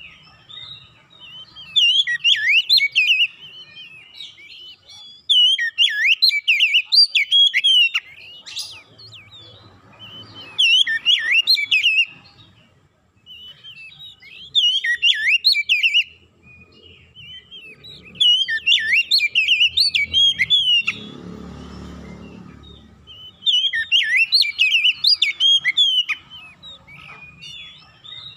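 Oriental magpie-robin (kacer) singing: loud phrases of rapid, varied high notes every few seconds, with short pauses between. It is the kind of song that draws the attention of other magpie-robins.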